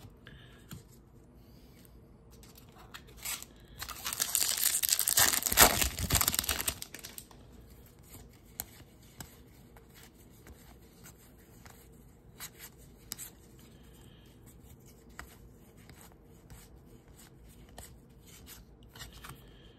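A baseball card pack's wrapper torn open and crinkled for about three seconds, the loudest sound, followed by soft scattered ticks of the cards being slid and flipped through in hand.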